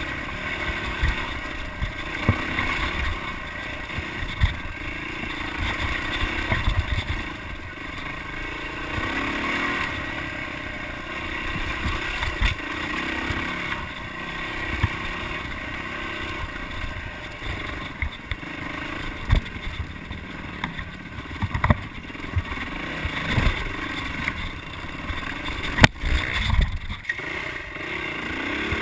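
Yamaha dirt bike engine running as it is ridden off-road, its pitch rising and falling with the throttle. Frequent low thuds and clatter come from the bike bouncing over rough ground, with one sharp knock near the end.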